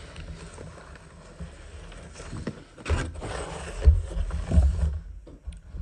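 Cardboard carton, packing paper and bubble wrap rustling and scraping as a boxed game set is pulled out by hand, with a sharper rustle about three seconds in and a few dull bumps around four seconds in.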